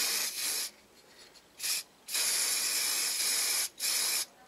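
Aerosol can of black spray paint hissing in four short bursts, the longest about a second and a half, as a second coat goes on.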